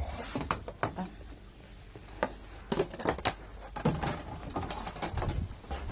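Irregular light knocks and clicks of footsteps on a wooden deck, with handling knocks from the camera and paddle being carried.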